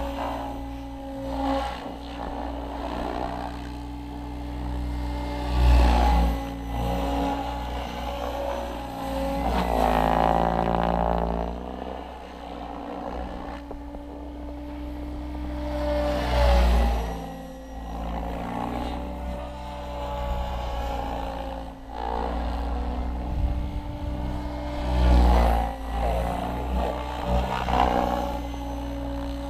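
Electric Goblin 700 radio-controlled helicopter flying: a steady whine from its rotors and motor that swells and bends in pitch several times as it manoeuvres and passes.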